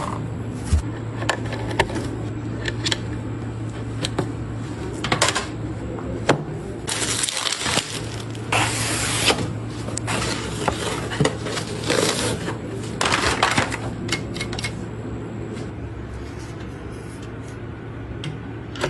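Hands handling and fitting computer parts: scattered sharp clicks and knocks, with a few short bursts of rustling scraping, over a steady low hum.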